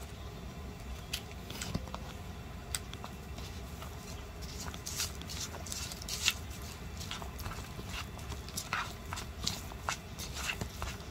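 Irregular light clicks and crackles over a steady low rumble, growing busier about four seconds in.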